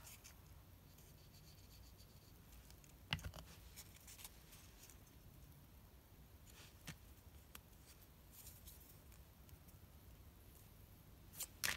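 Near silence: faint handling of a small brown cardboard strip being curled by hand, with a few soft taps, the clearest about three seconds in.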